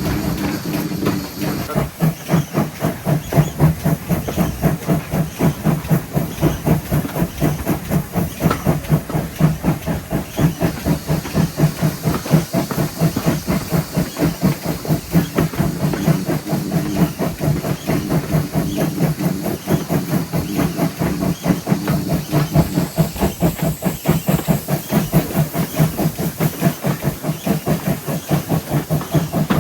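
GWR 5700-class pannier tank steam locomotive working along, its exhaust beats coming steadily at about three to four a second over a constant hiss of steam.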